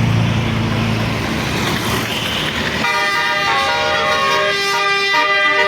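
Bus engine and road noise, then about three seconds in a Basuri telolet horn cuts in, playing a melody of several notes sounding together and stepping from one note to the next.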